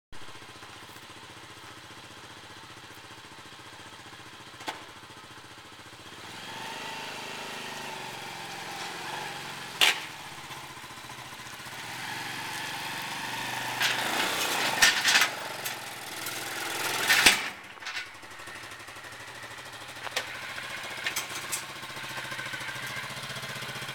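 Sport ATV engine idling, then revving as the quad is ridden and driven up into a pickup truck bed. There is a sharp knock about ten seconds in, and a run of revs and loud knocks a little past the middle. The engine settles back to a steady idle near the end.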